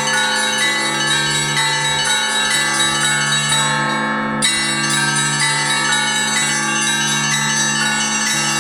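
Russian Orthodox church bells rung together in a continuous peal: the low, sustained tones of the large bells beneath many overlapping strokes of smaller bells. Just before the middle the highest bells briefly fall away, then come back with a fresh stroke.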